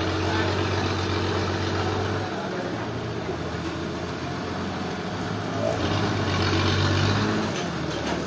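A sawmill's engine running steadily, with the hum louder and fuller for the first two seconds and again about six to seven seconds in.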